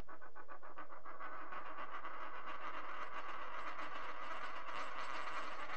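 A silver dollar spinning and wobbling down on a wooden tabletop: a fast, even rattle of the coin's rim against the wood over a steady metallic ring.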